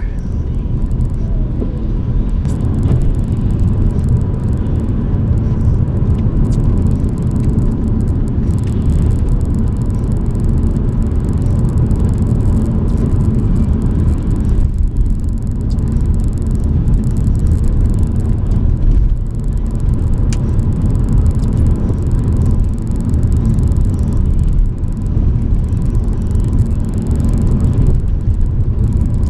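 BMW E92 coupe with a straight-six engine driving on a rough, bumpy wet road: a steady low rumble of engine and road noise.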